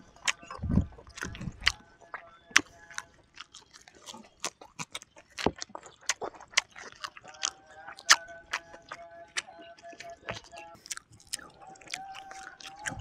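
Close-up eating sounds: sharp wet clicks and lip smacks of someone chewing and biting grilled chicken and rice, coming quickly and unevenly. Faint steady tones sit underneath in the second half.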